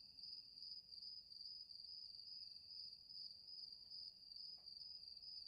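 Faint, steady chirping of crickets, a cartoon sound effect used for an awkward silence.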